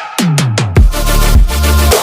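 Loud electronic dance music of the dubstep kind, with heavy bass and drum hits and bass notes sweeping down in pitch.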